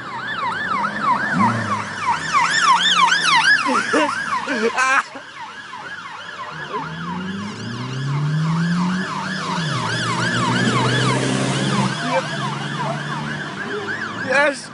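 Police car siren on a fast yelp, rising and falling about three times a second, with a car engine revving underneath. A sharp knock about five seconds in.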